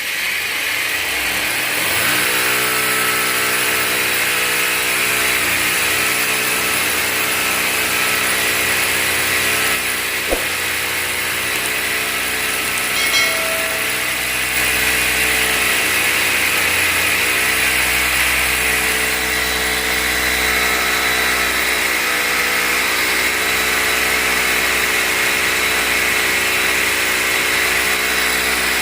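Electric hammer drill with a 16 mm masonry bit boring a hole into a concrete ceiling slab for a fan anchor hook, running steadily without a break.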